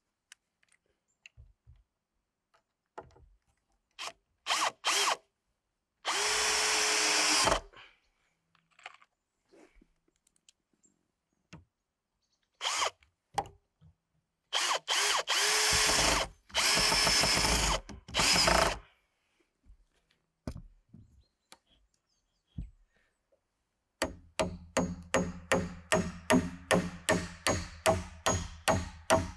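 Cordless drill-driver driving screws through metal corner brackets into wooden frame boards, in several short and longer runs. Near the end, a claw hammer strikes a nail repeatedly in quick, even blows, about three a second.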